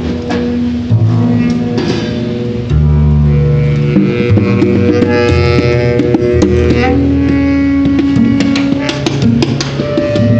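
Freely improvised music for double bass and saxophone: long held notes over low bass notes. Sharp plucked and clicking notes come in over the last few seconds.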